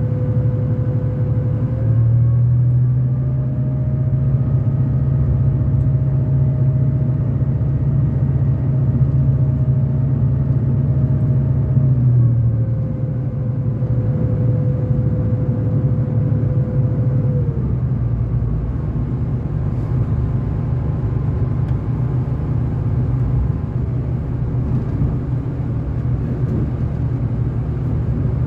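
V/Line diesel train under way, a steady rumble with a whine over it. The low engine hum strengthens about two seconds in and the whine rises slightly with it. Around twelve seconds both ease back, and the whine dies away a few seconds later.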